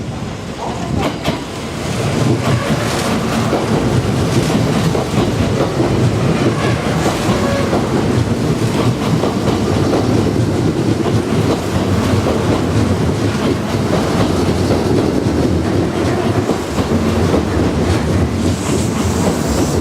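Kintetsu electric train running into a station, its wheels clacking over rail joints above a steady rumble of running noise that grows louder about two seconds in.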